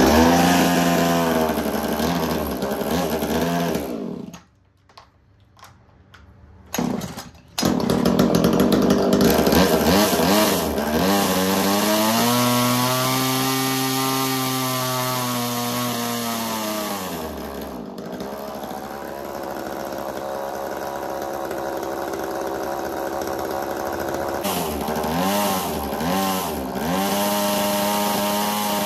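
Echo CS3000 two-stroke chainsaw engine driving a Versa Tool water pump attachment. The engine runs, goes quiet for about three seconds, then starts again about seven seconds in. Around twelve seconds in it revs up to a high steady speed for about five seconds, then drops back to idle, with a couple of short blips of the throttle near the end. The pump is running without picking up water.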